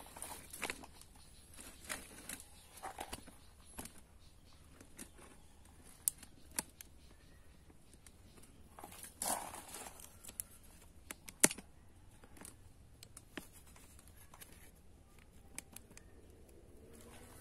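Thin split bamboo strips being handled and gathered for weaving: light rustling and scraping with scattered clicks as the strips knock together, and a sharper click about eleven seconds in.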